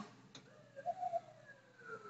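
FDNY fire truck siren, faint, one wail gliding slowly down in pitch as the ladder truck passes. A brief click sounds just after the start.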